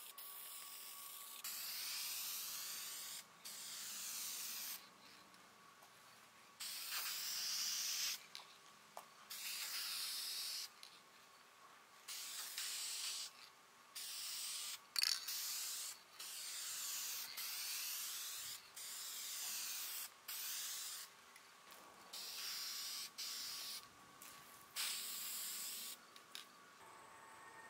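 Aerosol spray can of clear lacquer hissing in short bursts of a second or two each, about a dozen in all with brief pauses between, as coats of lacquer finish go onto wood.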